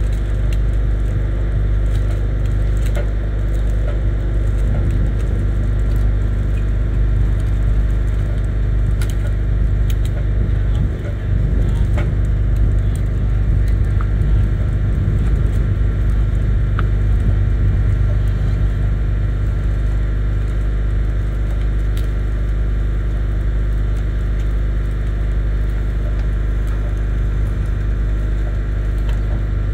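Heavy tow truck's engine running steadily at an even speed, with a few light clicks and snaps over it.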